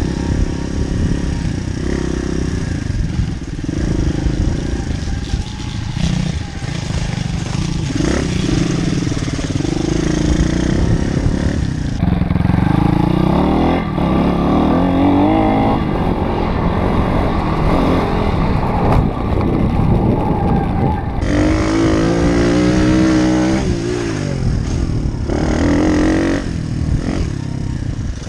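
Pit bike's single-cylinder four-stroke engine being ridden hard, revving up and falling back again and again as the rider works the throttle and gears, with wind rushing over the helmet-camera microphone.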